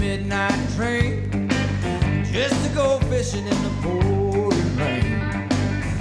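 Country music with a steady beat of about two strikes a second and a pitched melody line.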